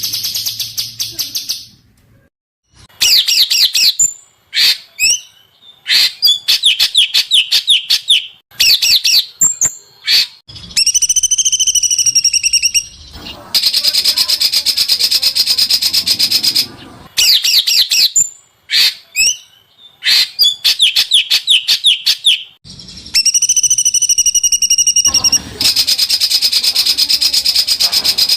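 Recorded songs of small songbirds used as masteran, training song for white-rumped shamas to copy. Bursts of rapid high chirping notes alternate with long, fast, high trills lasting several seconds, and the same phrases come round again and again.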